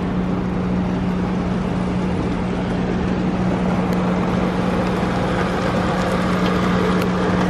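Wesumat car wash's rotating brush scrubbing the car while water sprays on it, heard from inside the cabin as a steady hiss. A constant low hum runs underneath.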